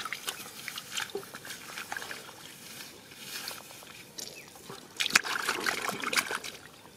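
Hands sloshing and splashing in shallow muddy water, groping for fish, with scattered small splashes that become busier and louder about five seconds in.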